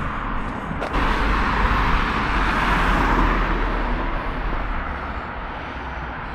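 Road traffic: a vehicle passing close by, its tyre and engine noise swelling about a second in and fading away over the following few seconds.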